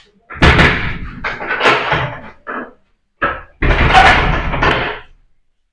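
A wooden door banging and rattling in two loud bouts, the second starting about three and a half seconds in, with a few shorter knocks between.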